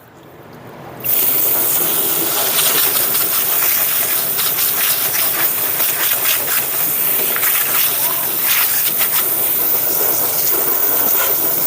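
Water spray from a hose nozzle washing mud and debris off a flood-damaged furnace: a steady, spattering hiss that starts suddenly about a second in.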